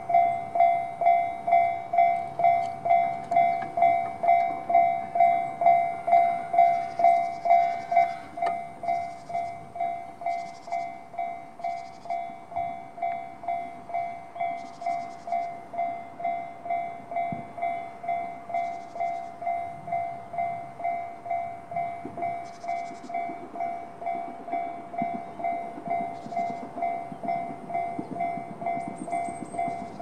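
Japanese railway level-crossing alarm ringing the JR standard electronic bell tone, about two strokes a second, warning of an approaching train. It gets noticeably quieter about eight seconds in.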